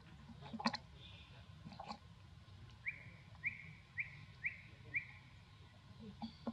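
A run of five short, high chirping calls, each dipping slightly in pitch, about two a second. Two sharp knocks come before them in the first two seconds.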